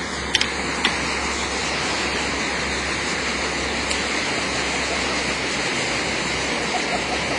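Thermite burning fiercely in a flower pot with a steady hiss, the reaction melting a hard drive, with two sharp pops in the first second.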